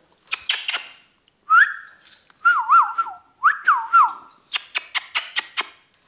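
Ringneck parakeet chirping and whistling: a few sharp chirps, then a rising whistle and wavering up-and-down whistles, then a quick run of about six sharp chirps.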